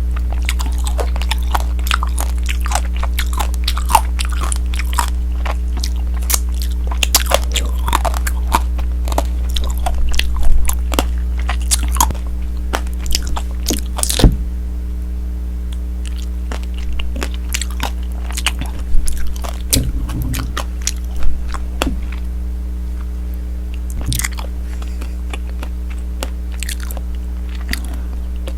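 Close-up crunching and chewing of tanghulu, the hard candied-sugar shell on the fruit cracking between the teeth in many sharp crackles. The crackles come thick and fast through the first half, then give way to sparser chewing. A steady low electrical hum runs underneath.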